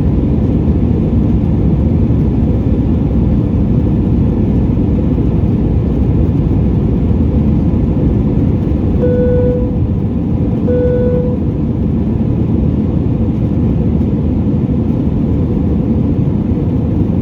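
Steady cabin noise of an Airbus A320 in flight, the deep rush of airflow and its IAE V2500 engines heard from a seat by the wing. Just past the middle, two short identical tones sound about a second and a half apart.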